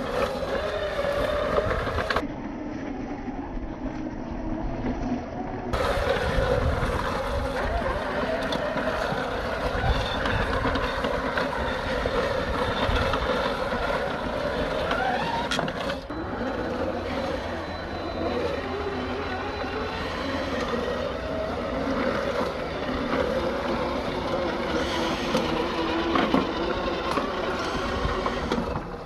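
Traxxas X-Maxx electric RC monster truck's motor and drivetrain whining as it tows a manual reel mower through grass, its pitch shifting with speed, mixed with the whirr of the spinning reel blades.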